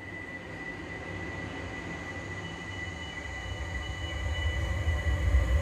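Dark ambient drone music: two steady high tones over a low rumble that swells louder from about three and a half seconds in.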